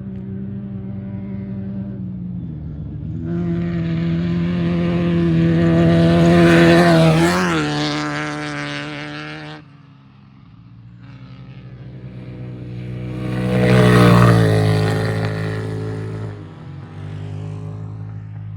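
Off-road race vehicles passing at speed, their engines swelling to a peak and falling away with a drop in pitch, twice: once about seven seconds in, cut off suddenly a couple of seconds later, and again about fourteen seconds in. A steady engine drone runs underneath.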